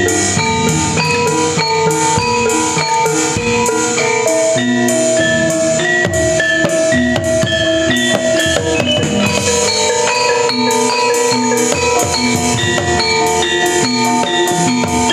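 Javanese gamelan playing an opening gending: struck bronze metallophones ring out a steady stream of interlocking notes over hand drums.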